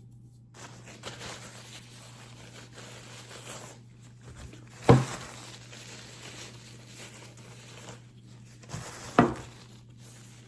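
Hands rubbing mineral oil into a knife's wooden handle, a soft rubbing, with two sharp knocks, one about five seconds in and one near the end.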